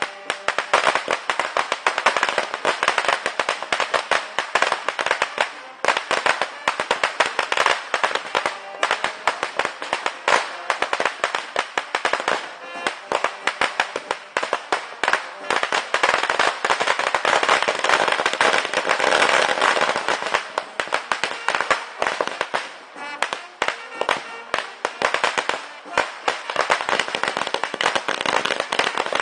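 Spark-spraying fireworks crackling and popping rapidly and without a break, with music playing underneath.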